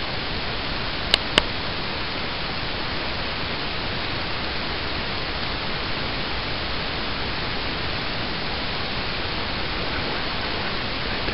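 Steady, even hiss with no other sound in it, broken by two sharp clicks about a quarter of a second apart a little after a second in.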